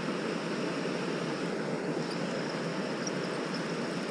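Steady outdoor rushing noise with no single clear source, holding at an even level, with a few faint brief chirps high up.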